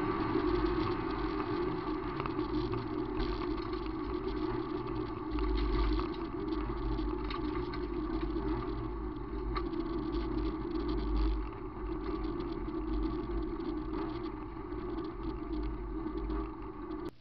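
VW Gol rally car running on a gravel road, heard from inside the cabin: steady engine drone and low road rumble, with many small clicks and knocks from the gravel. The sound eases off over the last few seconds as the car slows down.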